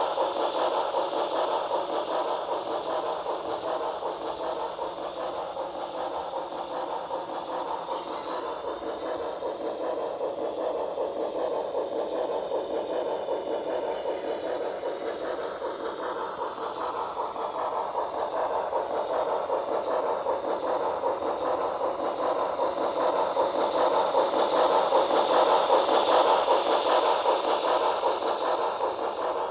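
HO scale BLI PRR I1sa 2-10-0 Decapod model steam locomotive running a freight train, its Paragon 2 sound system playing steam sounds over the rattle of the model cars' wheels on the track. It grows louder near the end as the cars pass close.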